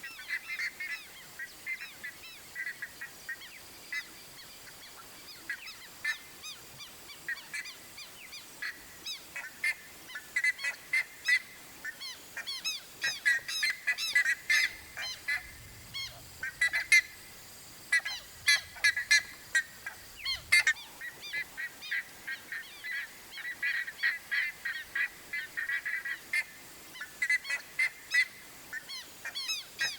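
Buff-necked ibis calling: a long run of short, loud calls repeated in quick series. The calls are sparser over the first several seconds and come thick and overlapping from about ten seconds in.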